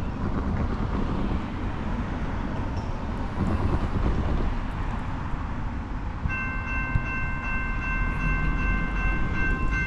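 A steady low rumble, then about six seconds in a distant locomotive air horn starts sounding a steady chord of several notes: one long blast, a brief break near the end, and a second blast as the train approaches the crossing.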